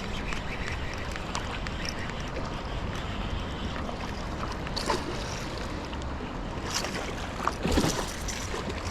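Steady rushing noise of river water at the rapids, with a few short sharp sounds about five, seven and eight seconds in.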